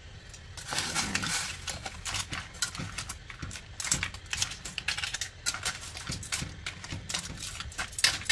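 Metal tongs clicking and scraping against a stainless steel wok and the hard shells of blue swimmer crabs as the crabs are piled into the pot, an irregular clatter of clicks and knocks.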